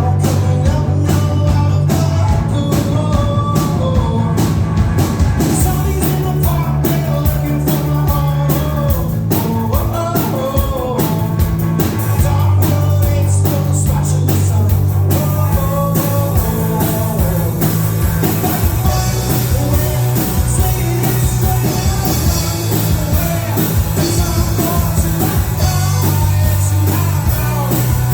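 Rock band playing live: a sung melody over electric guitar, bass and drums, with the drums keeping a steady beat.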